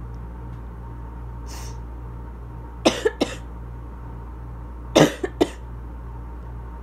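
A person's asthma cough, in two fits of three quick coughs: one about three seconds in and one about five seconds in.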